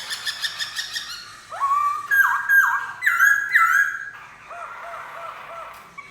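Black-throated laughingthrush singing: a fast trill of rapid repeated notes, then about a second and a half in a run of four loud, clear slurred whistles, and near the end a softer series of short repeated notes, about four a second.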